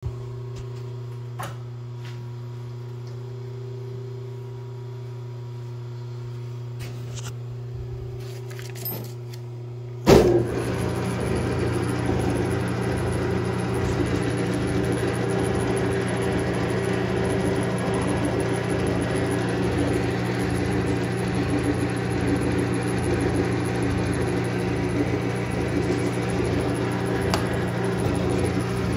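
Logan metal lathe: a low steady hum with a few light clicks, then about ten seconds in a sharp clunk as the lathe starts, after which the spindle and chuck run with a steady, louder mechanical whir.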